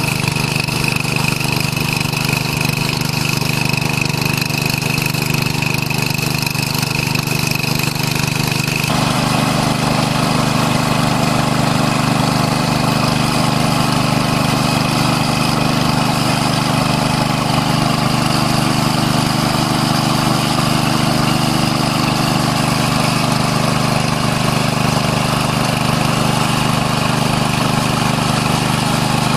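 Small petrol engine of a portable water pump running steadily at constant speed while pumping water out of a ditch. Its tone shifts abruptly about nine seconds in.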